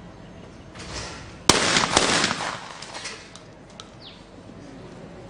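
A skeet shotgun shot about a second and a half in, loud and sharp, with a ringing tail that lasts about a second.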